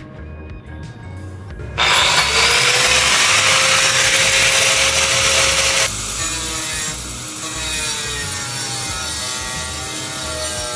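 Angle grinder with a Ridgid diamond metal-cutting wheel cutting through the aluminum skin of an enclosed trailer, starting loud about two seconds in with a whine that climbs slightly as it comes up to speed. About six seconds in it eases a little and its whine sags in pitch under load as the wheel bites into the cut. Faint background music before the cutting starts.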